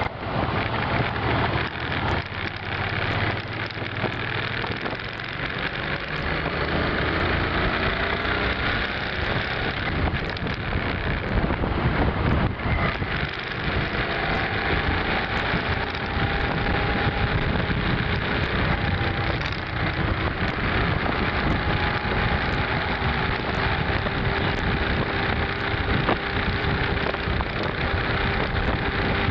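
V-twin cruiser motorcycle running along at road speed, with steady wind rush over the microphone. The engine pitch climbs a few times in the first half and then holds steady.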